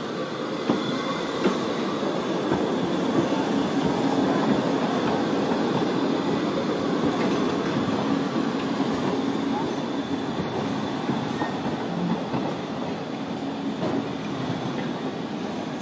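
Low-floor articulated PESA Fokstrot tram rolling past on street track, its wheels and running gear rumbling steadily and growing louder as it comes close. A few brief high-pitched wheel squeals come from the curved track.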